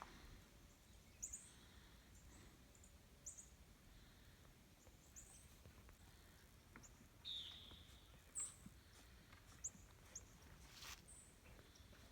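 Faint, short, high-pitched bird chirps scattered through near quiet, with one sharp click near the end.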